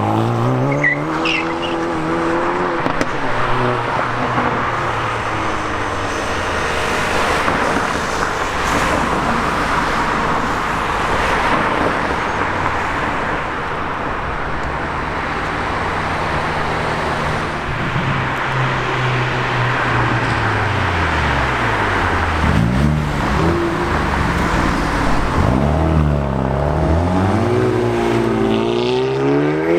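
Hyundai i30N 2.0-litre turbocharged four-cylinder engines accelerating hard, revs climbing and dropping again and again through gear changes over loud exhaust and road noise. Several steep rev climbs come one after another near the end.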